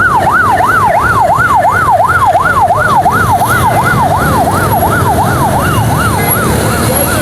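Emergency-vehicle siren wailing in quick, even up-and-down sweeps, about two to three a second, over steady street traffic noise; it grows fainter near the end.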